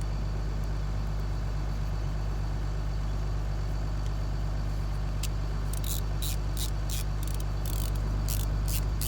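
Steady low hum of an idling vehicle engine. From a little past halfway, a quick run of short, sharp, raspy bursts joins it, about three a second.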